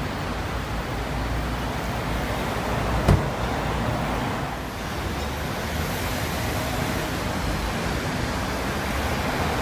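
Steady traffic noise with a low rumble, and a car door shutting with one thump about three seconds in.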